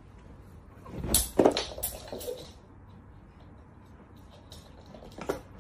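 A burst of knocks and scuffling about a second in, then a few faint taps and one more knock near the end.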